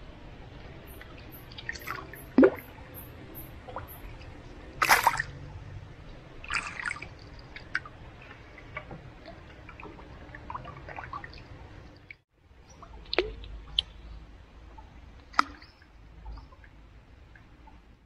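Water dripping and small splashes at the side of a small boat on a river: a handful of separate drips and plops over a low steady background, the loudest about two and a half and five seconds in.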